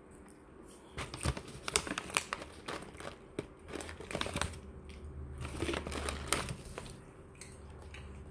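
Irregular crinkling and rustling of plastic being handled, in clusters of crackles from about a second in until about seven seconds in.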